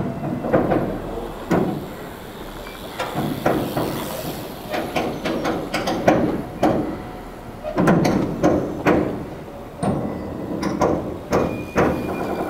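Old iron swing bridge turning on its pivot, giving a run of irregular metallic clanks and knocks, with a brief squeak near the end.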